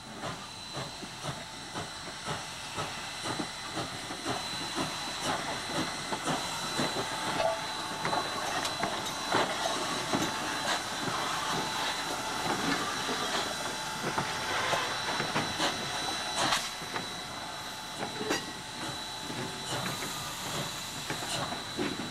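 Steam locomotive working: a steady hiss of steam with many short, irregular chuffs and clanks.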